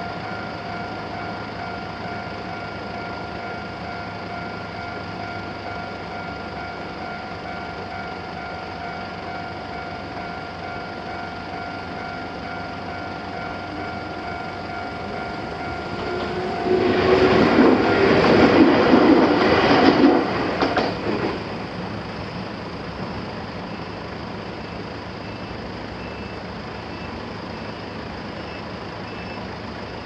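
A Japanese level-crossing warning bell rings steadily. About 17 seconds in, a Fukushima Kōtsū electric train passes over the crossing, loud for about four seconds, and its noise fades away along with the bell.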